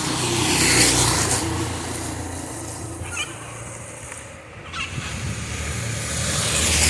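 Cars passing on a rain-wet street: a broad tyre hiss with a low engine rumble that swells about a second in, fades, then swells again near the end.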